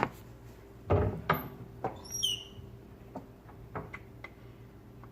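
A few knocks and thuds from household things being handled, with a brief cluster of high, squeaky chirps about two seconds in.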